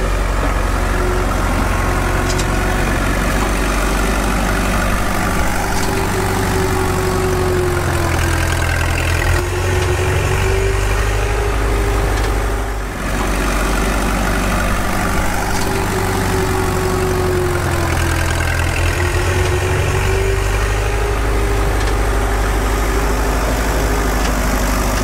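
Truck engine idling steadily: a constant low rumble with a higher tone that dips and rises every few seconds, and a short drop in level about 13 seconds in.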